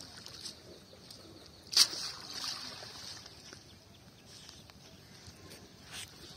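Wet cast net being hauled out of a pond by hand: one sharp splash about two seconds in, with water running off the net for a second after it, then a few faint splashes.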